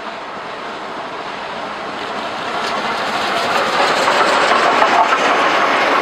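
Freight train hauled by steam locomotive CFL 5519 passing close by, with a rumble and clatter of wheels on rail. It grows steadily louder, with a regular clicking coming in after about two seconds, as the locomotive, the diesel behind it and the first flat wagons roll past.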